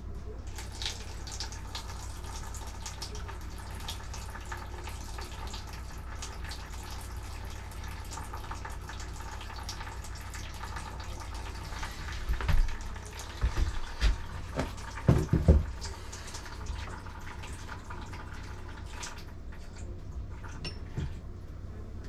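Water running steadily from an opened toilet supply line into a plastic tub as the shut-off bathroom plumbing is drained; it stops near the end. A few knocks and bumps come about halfway through.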